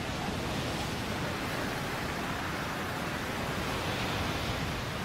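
Breaking surf washing over the shore: a steady rush of churning water with no single crash standing out.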